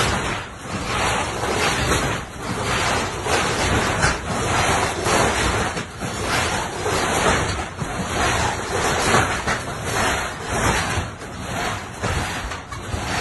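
Wind rushing on the rooftop and across the phone's microphone, coming in gusts that swell and fade every second or two.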